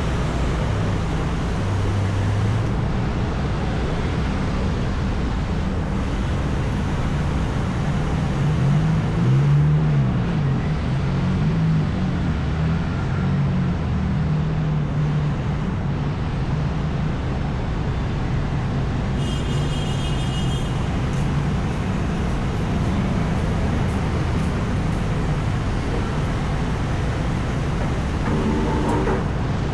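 Street traffic: steady road noise with vehicle engines running and passing. One engine's pitch rises and falls about ten seconds in.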